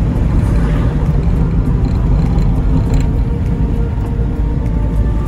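A car being driven along a road: a steady low rumble of engine and tyres.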